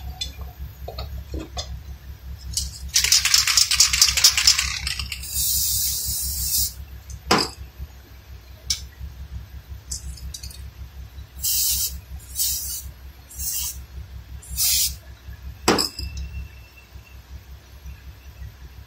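Metal tools and brake parts clinking and knocking around a vehicle's front brake hub and rotor. About three seconds in comes a rapid rasping run of clicks, then a longer hiss, and later four short hisses, over a steady low hum that fades near the end.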